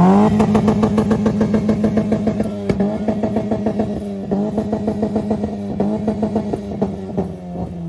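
Car engine held at high revs for several seconds, its exhaust note steady and slightly wavering, with a few brief dips in revs.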